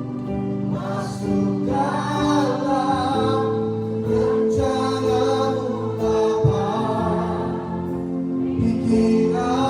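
Worship choir singing a gospel song in phrases about a second long, over held chords.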